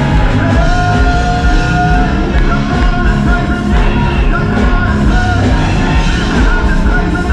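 Children's choir and a male lead singer singing gospel music with a live band of drums and keyboards, loud and continuous.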